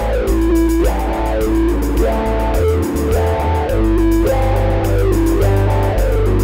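Electric guitar playing melodic lead phrases with bent, gliding notes over a steady electric bass line, in a full-volume rock instrumental passage without vocals.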